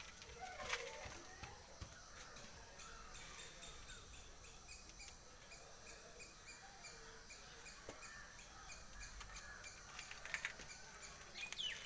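Faint birdsong: thin, evenly repeated high chirps, with a quicker run of falling chirps near the end.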